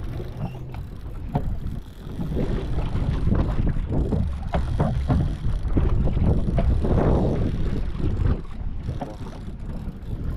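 Wind rumbling on the microphone aboard an open fishing boat, with occasional short knocks.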